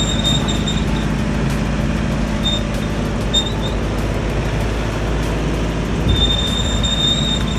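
Steady low rumble of a vehicle in motion, with a thin high squeal that comes and goes, longest near the end.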